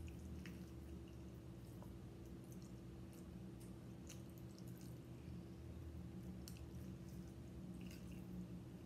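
Faint wet chewing and mouth smacks from a mouthful of spaghetti, with scattered short clicks as a metal fork works in a plastic food tray, over a steady low hum.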